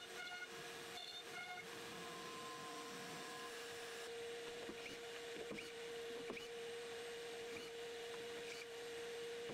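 Stepper motors of an Ooznest WorkBee Z1+ CNC router whining in short pitched tones that change pitch as the gantry moves, over a steady hum. After about three and a half seconds only the hum is left, with a few faint clicks.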